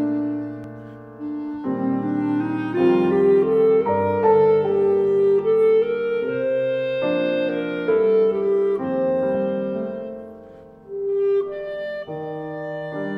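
Background music: a melody of held notes over accompaniment, fading down briefly about a second in and again near ten seconds before picking up.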